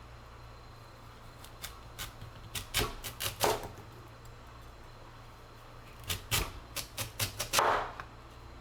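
Light clicks and knocks of food preparation in two bursts, about a second and a half in and again around six seconds, the second ending in a short scrape near the end.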